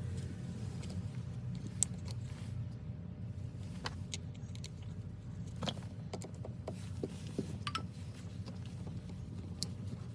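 Scattered light clicks and taps of small hard parts being handled, over a steady low hum.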